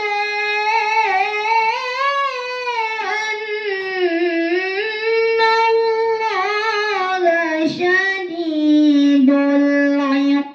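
A girl's voice reciting the Qur'an in melodic tilawah style into a microphone, drawing out long notes with wavering, ornamented glides in pitch. The phrase ends on a long, steady lower note.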